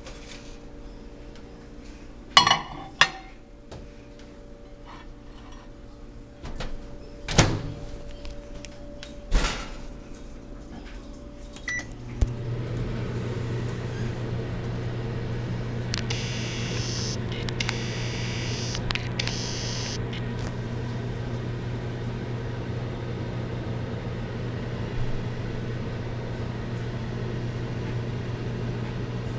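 Microwave oven: a few sharp clicks and knocks and a short beep, then about twelve seconds in the oven starts and runs with a steady low hum while it heats a bar of soap.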